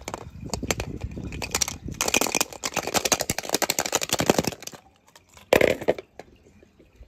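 Small hard toys clattering and crunching as they are handled: a dense run of clicks and rattles, thickest in the middle, then a single louder knock about five and a half seconds in.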